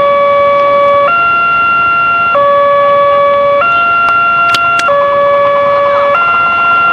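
Railway level-crossing warning alarm sounding from the crossing signal post. It is an electronic two-tone signal that switches between a lower and a higher tone about every second and a quarter, warning that a train is approaching.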